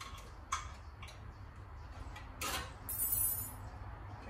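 A few light clicks and a short scrape of parts and tools being handled, with a brief high hiss about three seconds in, over a low steady hum.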